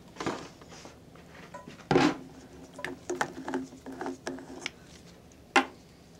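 Scattered clicks and knocks of plastic being handled: an empty plastic water bag and a bottle of sterile water, with a hand working the bottle's cap. Two sharper knocks stand out, about two seconds in and near the end.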